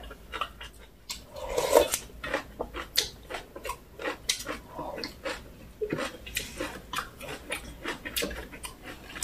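Close-miked eating sounds of aged-kimchi rice wraps being chewed: irregular wet mouth clicks and smacks.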